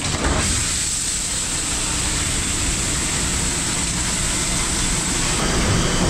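Commercial door-type dishwasher running its wash cycle: a steady rushing hiss of water spraying inside the closed machine, starting about half a second in.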